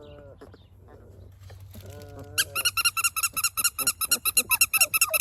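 Labrador retriever puppy whimpering twice, short whines. About halfway in, a loud, rapid run of high squeaks starts, about five a second.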